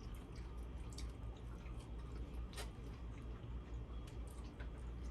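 Wet eating sounds of a seafood boil: chewing and squishing of sauce-covered seafood, with scattered small clicks and smacks, over a steady low hum.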